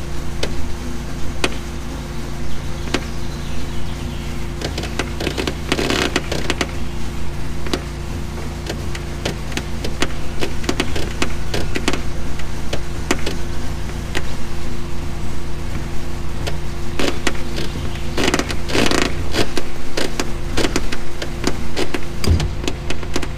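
Marina fuel pump motor humming steadily while gasoline flows through the nozzle into a boat's tank, with scattered clicks and a few short rustling rushes.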